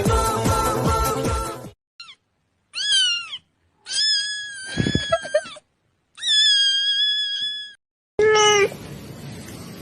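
Background music stops about a second and a half in, followed by a string of domestic cat meows: a short one, a rising-and-falling one, then two long drawn-out meows and a final short one near the end.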